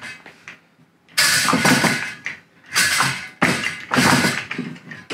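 Lever-action fry cutter being worked: the handle pushes potatoes through the steel blade grid in three rattling mechanical strokes of about a second each, starting about a second in.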